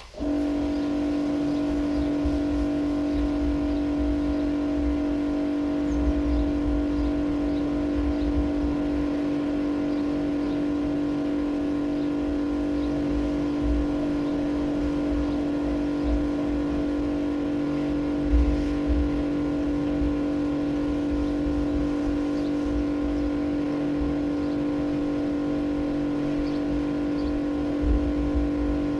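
Electric pressure washer starting abruptly and running with a steady motor-and-pump hum, jet-washing green algae slime out of the inside of a plastic IBC water tank, with an irregular low rumble under the hum.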